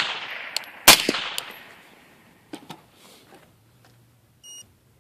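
A suppressed rifle shot from an 11.5-inch 5.56 AR-15 with a titanium suppressor about a second in, the last of a quick three-round string, with the tail of the previous shot still fading at the start. A couple of light clicks follow, then a short electronic beep near the end from the handheld infrared thermometer used to read the suppressor's temperature.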